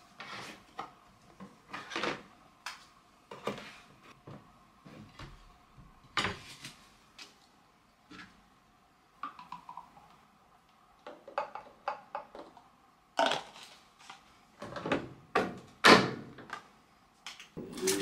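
Handling sounds of plastic: a series of separate clicks and knocks as a laundry detergent bottle is lifted out of a plastic storage bin, its cap worked, and a washing machine's detergent drawer handled. The knocks are loudest and closest together near the end.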